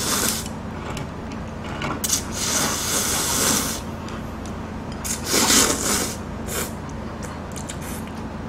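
Seafood ramen noodles slurped in repeated long hissing pulls: one at the start, a longer one from about two seconds in, and another about five seconds in, over a low steady hum.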